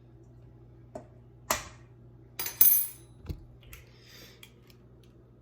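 Kitchen clatter as ingredients go into a mixing bowl: a handful of short knocks and clinks of containers and utensils, the loudest a sharp clatter about two and a half seconds in, over a low steady hum.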